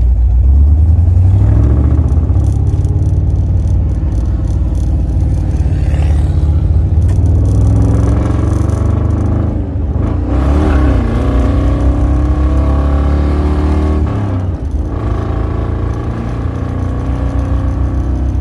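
A 1968 Camaro's engine running through its chambered exhaust while driving. The engine note rises and falls in pitch, with brief breaks about ten and fifteen seconds in.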